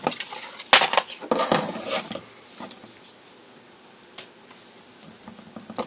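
Handling noise from a carbon-fibre mini quadcopter frame being worked on by hand: a sharp knock about three quarters of a second in, a cluster of clicks and rustles around one and a half to two seconds, then a few faint ticks.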